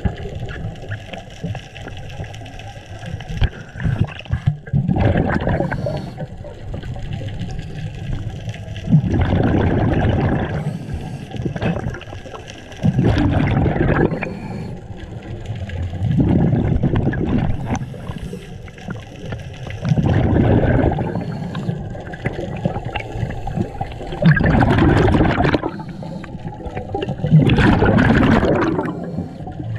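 Scuba regulator exhaust bubbles from a diver breathing underwater: a gurgling rush of bubbles about every four seconds, one per exhalation, with quieter stretches between breaths.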